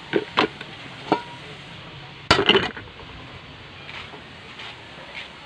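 Kitchenware clattering: a few light knocks, one leaving a short ringing note, then a louder clatter of several hits about two seconds in, as pots, pans and dishes are handled and set down.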